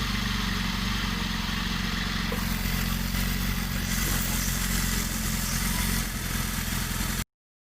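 Suzuki Gixxer 155 FI single-cylinder motorcycle engine running steadily at idle. It cuts off abruptly near the end.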